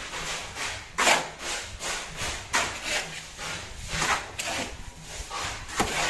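Shovels scraping across a concrete slab and scooping through a pile of sand and cement, a run of irregular rasping strokes about one a second: dry-pack mortar being mixed by hand.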